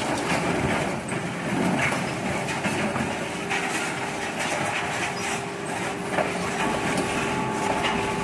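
Industrial metal shredder crunching up an engine casing: a steady din of grinding metal, packed with clanks and knocks, with a faint steady whine coming in partway through.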